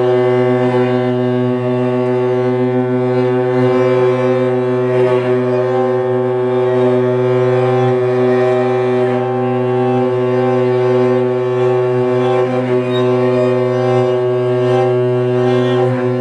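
Viola, cello and double bass bowing long held tones that merge into one steady, unchanging drone, rich in overtones.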